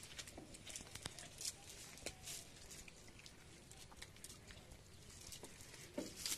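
Cast net full of small fish being lifted and shaken out on wet mud: faint, scattered light ticks and pattering as the net and the flapping fish hit the ground.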